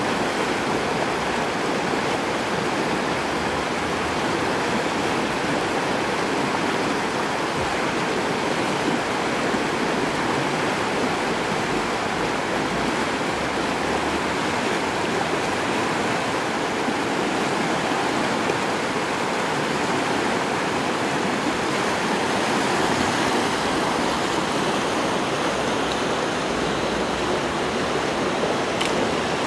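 A swollen, muddy creek rushing steadily, still running high after a flood.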